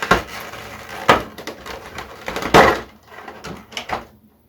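Plastic packaging being handled as figure parts are taken out: a few sharp crinkles and clacks, the loudest about two and a half seconds in, then smaller clicks.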